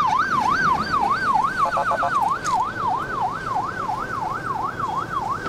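Police escort car's siren in a fast up-and-down yelp, about three sweeps a second, with a brief rapid stutter about two seconds in, over road and engine noise.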